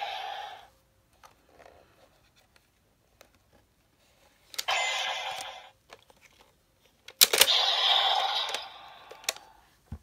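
Bandai DX Legendriver toy belt playing electronic sound effects through its small built-in speaker, in short bursts set off by sharp plastic clicks of its mechanism. One burst fades out under a second in, another comes at about five seconds, and a longer one follows a loud click at about seven seconds.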